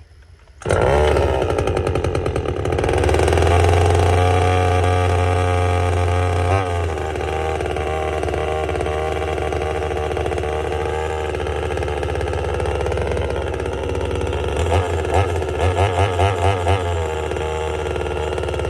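Vevor top-handle chainsaw's 25.4cc two-stroke engine firing under a second in on a cold start with choke and primer, running fast for a few seconds then settling to a steadier, lower speed. Near the end the throttle is blipped in a quick string of about eight short revs, roughly three a second.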